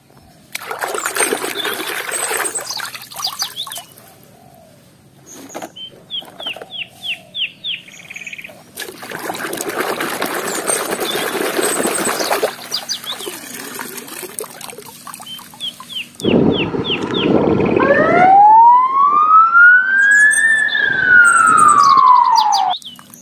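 Water splashing and sloshing as a hand swishes toys around in a plastic tub, with runs of high chirps between. Near the end an ambulance siren wails, one long rise and fall in pitch and the loudest sound here, then cuts off suddenly.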